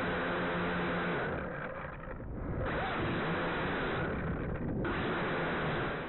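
Motors and propellers of a JJRC H8C toy quadcopter buzzing steadily, heard through the quadcopter's own onboard camera microphone. The higher hiss thins out briefly twice, around two seconds in and again around four and a half seconds.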